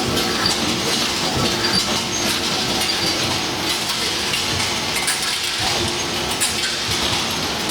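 Sakamura cold forging machine (cold former) running, a dense steady mechanical clatter with scattered sharp ticks.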